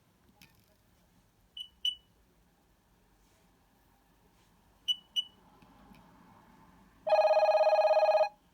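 Nokia 6230i mobile phone: two pairs of short high key beeps as its menu is worked. About seven seconds in, a ringtone starts playing as a loud, buzzy, fast-pulsing tone and stops abruptly after just over a second.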